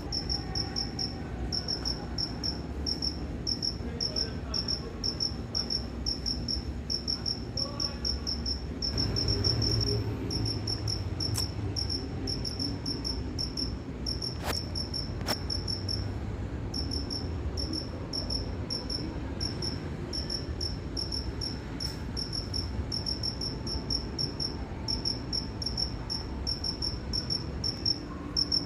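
Cricket chirping: a steady, even train of short, high-pitched chirps that pauses briefly about halfway through, over a low background rumble.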